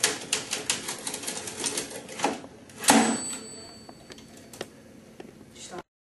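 Manual typewriter being typed on: a fast run of key clacks, then a louder clack about three seconds in with the bell ringing after it, then a few scattered key strikes.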